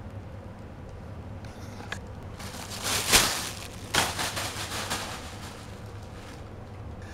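Thin plastic shopping bag crinkling and rustling as a kitten bats and paws at it, in a run of loud crackly rustles about halfway through, then quieter.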